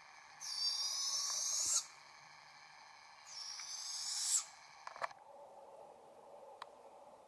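Juvenile barred owls giving their odd, raspy call twice, each call over a second long, swelling in loudness and stopping abruptly. These are the young owls calling for their parents.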